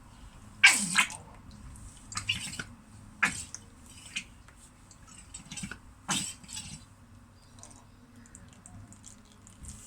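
Old fork oil being drained from a BMW F800ST front fork tube into a plastic tub: irregular splashes and glugs, heaviest in the first few seconds, thinning to faint drips near the end.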